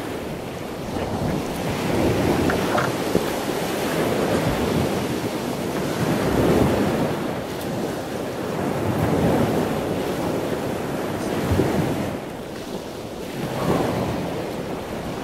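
Wind buffeting the microphone in gusts that rise and fall every couple of seconds, with water sloshing against a boat's hull.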